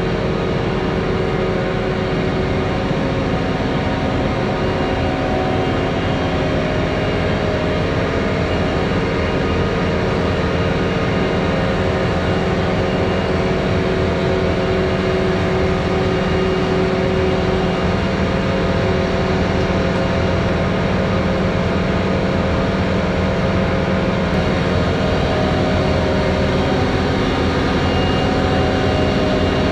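John Deere combine's diesel engine running steadily as the combine creeps forward, a constant engine note that grows slightly louder as it draws close.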